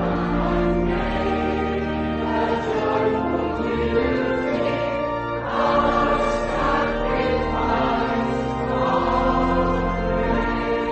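A choir singing a hymn in slow, held chords over a sustained organ accompaniment.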